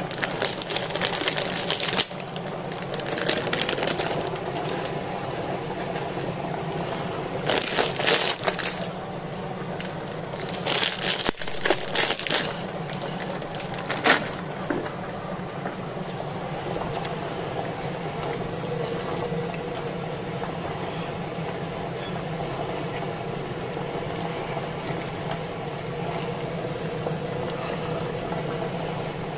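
Kitchen utensils and containers being handled, with several short bursts of clattering and rustling over the first half, the sharpest near the middle. A steady low hum runs underneath throughout.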